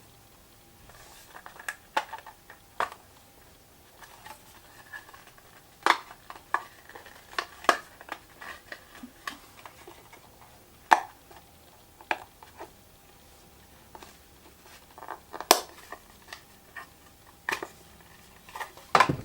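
Hands unpacking and handling a hard drive enclosure: irregular clicks, taps and light rustling of the box and its parts, with a few sharper clicks, the loudest about six, eleven and fifteen seconds in.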